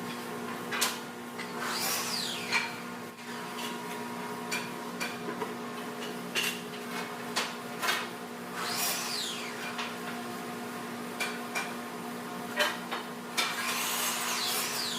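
Woodworking assembly sounds over a steady machine hum: scattered sharp knocks of wood and tools, and three short power-tool whines that rise and fall in pitch as the tool spins up and down, like a drill or driver.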